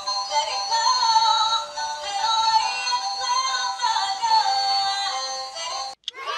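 Thin, high electronic melody with synthesized voice-like tones and almost no bass, cutting off suddenly near the end.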